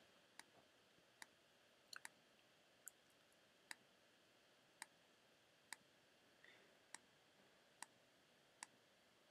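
Faint computer mouse button clicks, about one a second, with a quick double click near two seconds in. These are points being placed one by one along a stitch line in embroidery digitizing software.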